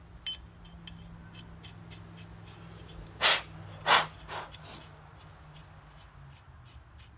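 Light metallic clicking, two or three ticks a second, as hands work at a drum-brake axle hub and its stud holes, with two short, loud hisses about half a second apart in the middle and two fainter ones just after.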